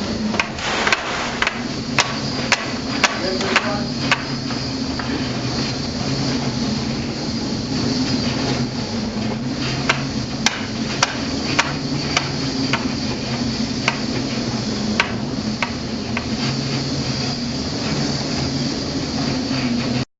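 Irregular sharp knocks and clacks over a steady low hum. The knocks come thickest in the first few seconds and again around the middle.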